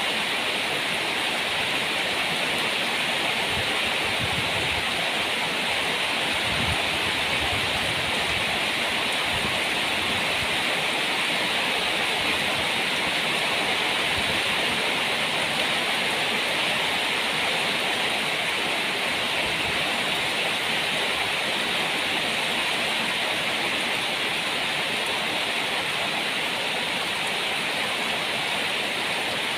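Heavy rain falling steadily in a storm, an even, unbroken hiss.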